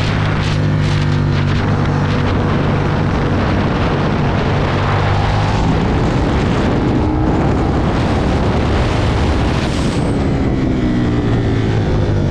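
Onboard sound of a 2009 Aprilia Tuono's V-twin engine under heavy wind rush. A few sharp pops come in the first second and a half, then the engine note rises under acceleration and falls away after about ten seconds as the bike slows.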